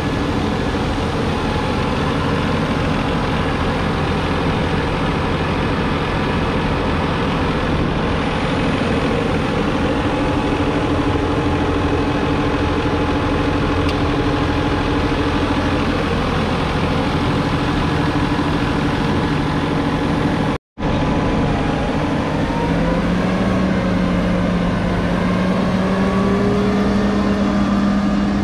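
JCB Fastrac 4220's 6.6-litre six-cylinder diesel engine running steadily. After a brief dropout about two-thirds of the way through, the engine note rises and holds higher.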